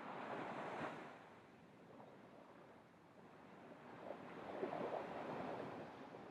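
Small surf washing onto a beach: the wash fades away about a second in, and a new wave breaks and rushes up the shore around four seconds in.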